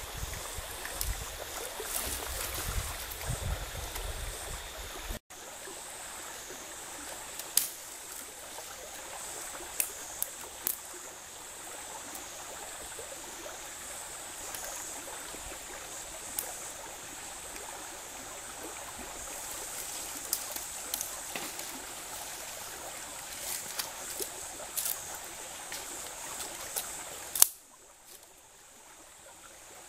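Shallow stream running steadily, with scattered sharp snaps of dry twigs being broken for a small campfire; the loudest snap comes near the end. A low rumble sits under the water for the first five seconds, then stops at a cut.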